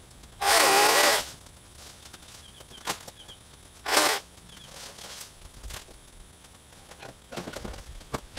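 24-volt cordless chainsaw cutting small limbs in two short bursts: one under a second long near the start, and a shorter one about four seconds in. A few faint clicks come between them.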